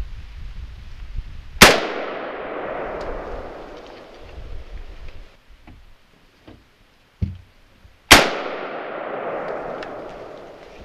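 Two shots from a Windham Weaponry AR-15 semi-automatic rifle, about six and a half seconds apart, each followed by a long echo that dies away over a few seconds. A duller knock comes just before the second shot.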